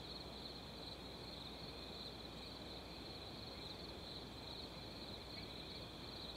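Crickets chirping steadily and faintly, an unbroken night insect chorus.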